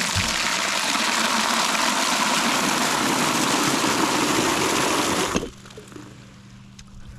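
Water gushing hard from an outdoor well spigot into a bucket, shut off suddenly about five seconds in.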